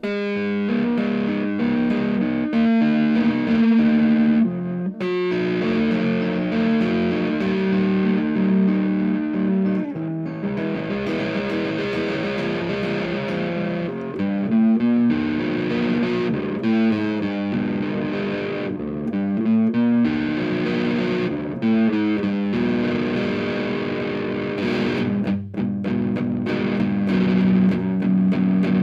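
Reville MV-X electric guitar with P90 pickups played through a Monoprice 15-watt tube amp with the gain at maximum: distorted chords and riffs ringing out, with a few brief gaps between phrases.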